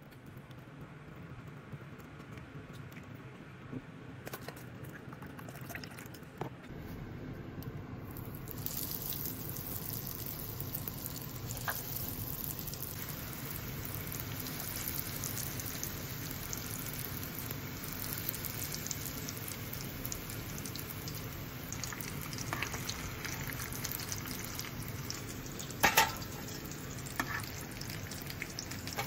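Breaded potato croquettes deep-frying in hot oil: a steady crackling sizzle that swells and brightens from about eight seconds in. A short sharp knock sounds near the end.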